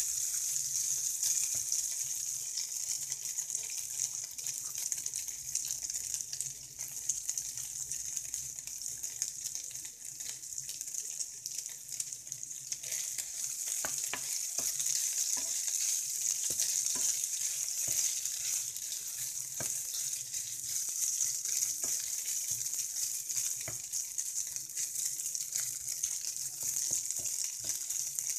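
Diced chicken frying in oil in a non-stick frying pan: a steady high sizzle with scattered small crackles, stirred now and then with a spatula.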